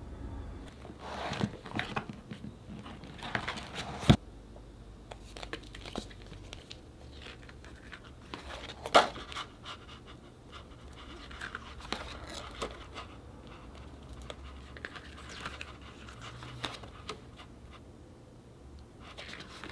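Hands handling unboxed packaging: irregular rustling and crinkling, with sharp taps or clicks about four seconds and nine seconds in.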